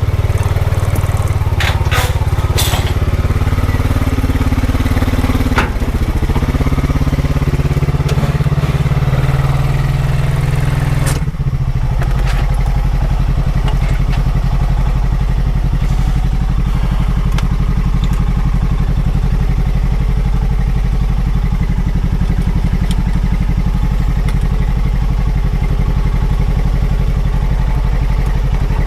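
Honda Pioneer 520 side-by-side's single-cylinder engine working as it is driven up onto a trailer in second gear, with a few sharp clanks in the first few seconds. About eleven seconds in, the engine drops back and settles to a steady idle.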